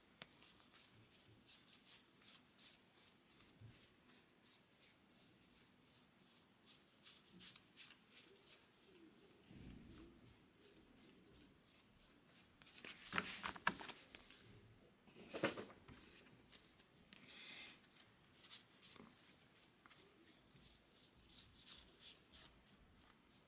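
A stack of Bowman baseball cards being thumbed through one by one in the hands: a fast, faint run of light cardstock clicks and flicks, with a few louder card slaps a little past the middle.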